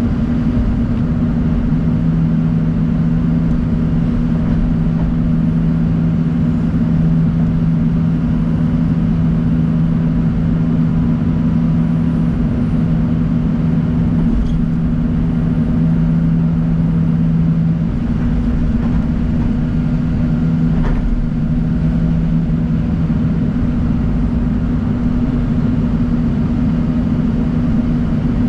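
John Deere 250G excavator's diesel engine running steadily, a constant low drone with a second, lower hum that drops out briefly a few times as the load changes.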